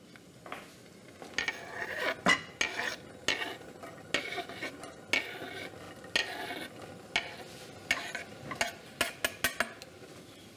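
A utensil scraping and knocking against a frying pan as chopped onion and garlic go into heated oil and are stirred, with a light sizzle of frying. There is a quick run of taps near the end.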